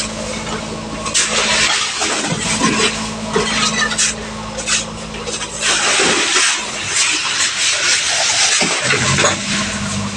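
A fishing boat's engine running with a steady hum under loud rushing water and wind noise from rough seas. The engine hum drops away for a couple of seconds past the middle, then comes back.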